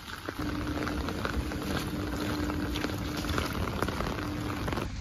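Heavy rain falling on pavement and puddles, a dense hiss of many small drop hits. A steady low hum comes in about half a second in.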